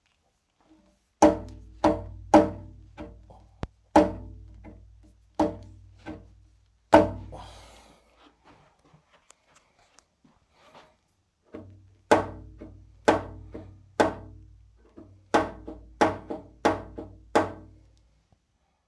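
Bowflex M5 exercise machine in use, giving sharp, ringing knocks about once or twice a second over a low rumble, with a pause of a few seconds midway. The owner thinks the knocking calls for the wave washer kit.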